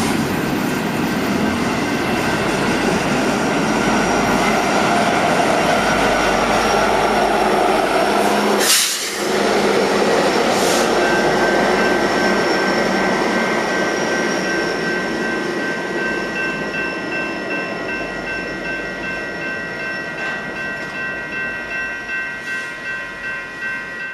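Intermodal freight train cars rolling past: steady wheel-on-rail noise with thin high squealing tones from the wheels. A sharp knock comes about nine seconds in. In the second half, the wheels clicking over rail joints make a regular beat.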